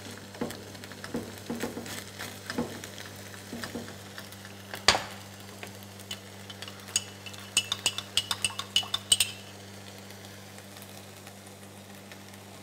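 Beef and bell peppers frying in a wide pan, stirred with a wooden spatula that scrapes and knocks against the pan, with one sharp knock about five seconds in. Between about seven and nine seconds in comes a quick run of ringing clinks as a metal spoon knocks against a ceramic mug while sauce is spooned into the pan, then the food sizzles steadily.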